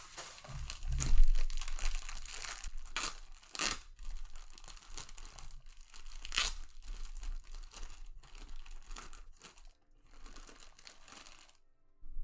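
Thin clear plastic packaging bag crinkling and crackling as it is handled and pulled open by hand, with sharp snaps and some tearing. There is a dull thump about a second in.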